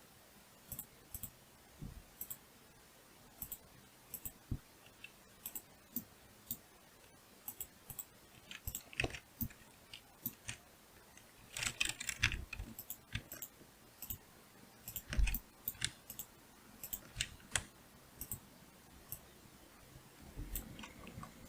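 Irregular clicks of a computer mouse and keyboard, single clicks every second or so with a few quick clusters, as a 3D model is edited in Blender.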